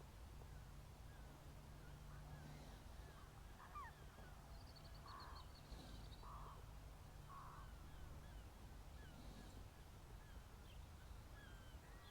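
Quiet lakeside ambience: faint songbird chirps throughout, with a short high trill about four and a half seconds in and three short distant bird calls about a second apart in the middle.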